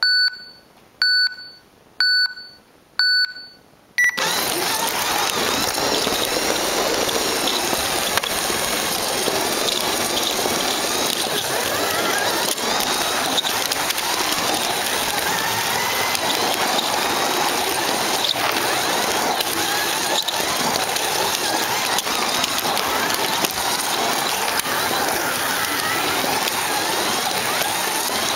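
Carrera Digital 132 race start: four short electronic beeps a second apart from the control unit's countdown, then about four seconds in a 1:32 slot car sets off and its small electric motor, gears and tyres on the plastic track give a loud, steady whirring rush with a wavering whine through it.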